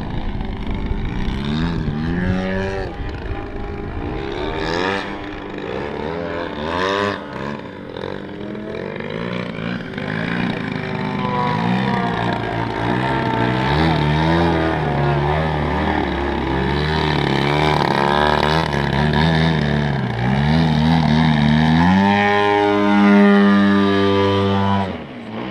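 Giant-scale Extra 330SC radio-controlled aerobatic planes flying, engine and propeller noise rising and falling in pitch again and again with the throttle, then holding a steadier, higher note for the last few seconds.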